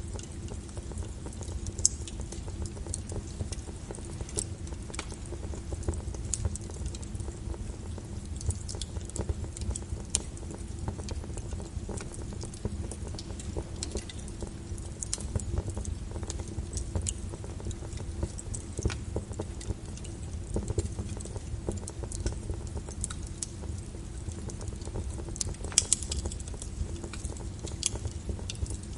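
Wood fire burning in a fireplace: irregular crackles and pops from the burning logs over a steady low rumble, with a quick run of louder pops near the end.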